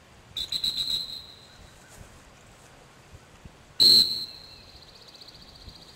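Dog-training whistle blown twice: a short trilling blast about half a second in, then a much louder blast near four seconds that fades out over about two seconds. These are sit whistles, blown to stop a retrieving spaniel in the field before handling it.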